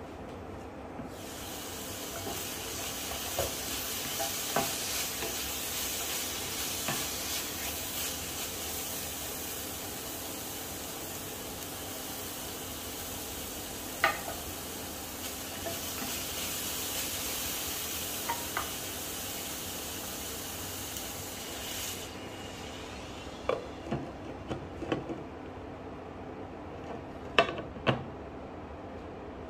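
Beef and broccoli sizzling hard in an uncovered frying pan, with clinks of a utensil and a knife against the pan. About 22 seconds in, the glass lid goes back on and the sizzle drops to a muffled hiss, followed by a few sharp clinks of the lid and utensil.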